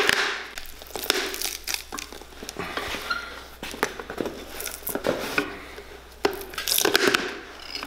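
A blake-stitched leather outsole being pried and torn off a worn boot with pincers: irregular creaking, crackling and tearing with sharp snaps as the sole comes away.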